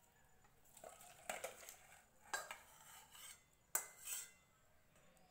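Metal spatula scraping and clinking against a metal pan and a steel bowl as curry is tipped and scraped out, a handful of short scrapes with a sharp clink almost four seconds in.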